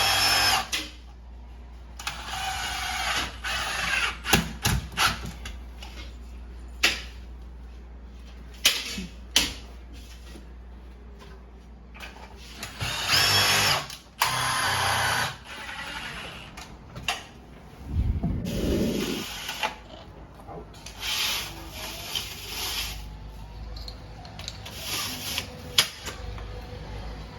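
Power drill run in a series of short bursts, some with a high motor whine, with clicks and knocks in between.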